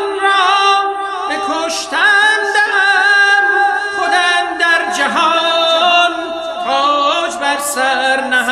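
Vocal music: several singing voices holding long notes that slide and waver from one pitch to the next over a sustained low note.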